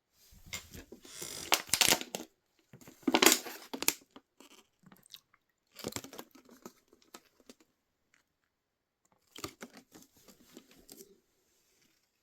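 Handling of plastic toy parts with scratchy rustling and small clicks, in four separate bursts with short quiet gaps between them.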